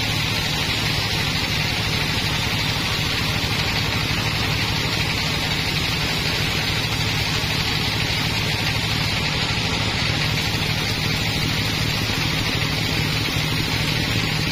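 Sawmill bandsaw blade cutting lengthwise through a log: a steady, unbroken hiss of the saw in the wood over the low hum of the machine.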